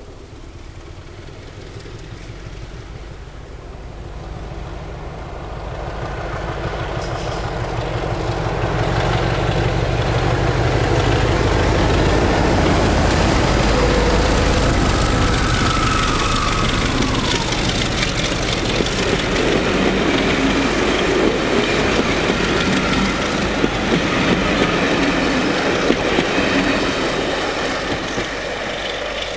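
BR Class 33 diesel locomotive 33063, with its Sulzer eight-cylinder engine, hauling a train past at speed: a low engine rumble grows louder to a peak about halfway through as the locomotive passes. The coaches follow with wheels clattering over the rail joints.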